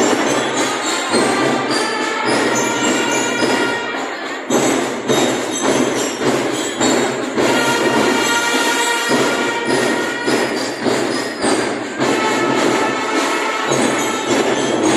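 Music with many sustained pitched notes over a steady, regular beat.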